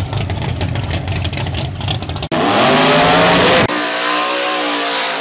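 Drag-race car engines in quick edited cuts: first a low engine note with crackling, then, a bit over two seconds in, an engine revving up with its pitch rising, then about a second later a steady high-revving note from a Chevrolet Nova drag car held at high revs during a burnout.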